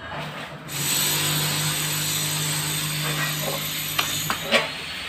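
A small motor runs with a steady whir and a low hum from about a second in, with a couple of sharp knocks near the end.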